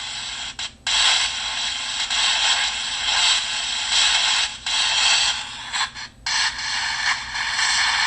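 Steady white-noise hiss played from an app on a computer, cutting out for a moment about a second in, again a little past the middle, and once more a couple of seconds later.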